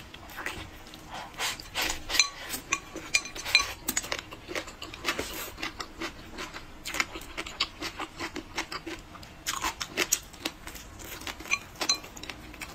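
Eating sounds: chewing of braised pork ribs and cabbage, with wooden chopsticks clicking against a ceramic bowl, in many irregular small clicks.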